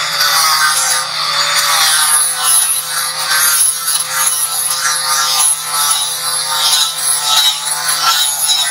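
Angle grinder running with a steady motor whine, its grinding wheel working down a weld on a steel leg bracket, the rasping grind swelling and easing as the disc bears on the metal.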